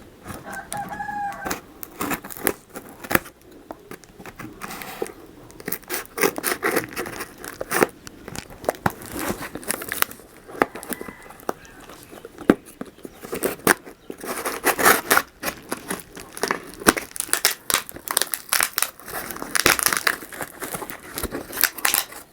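A motherboard box and its plastic packaging being opened by hand: cardboard and plastic tearing and crinkling, with frequent clicks and knocks of handling. A brief pitched call is heard about a second in.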